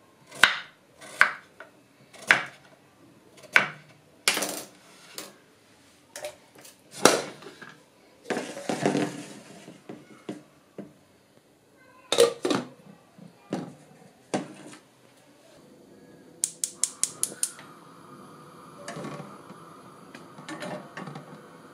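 A kitchen knife chops pumpkin on a wooden cutting board, about one chop a second, followed by clanks of a metal pot and its lid. About two-thirds of the way in, a gas stove's igniter clicks rapidly six or seven times. The burner then lights and runs with a steady hiss.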